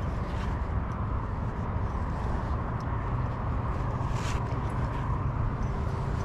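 A magnet-fishing rope being hauled in hand over hand, with faint scrapes and ticks and one brighter scrape about four seconds in, over a steady low outdoor rumble.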